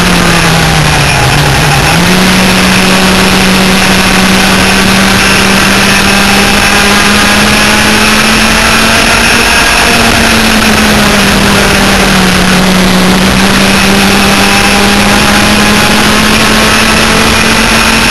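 Twin 100cc two-stroke engines of an enduro laydown kart running hard at racing speed, a loud, steady high engine note. The pitch sags and then jumps back up about two seconds in, and dips briefly again later before climbing back.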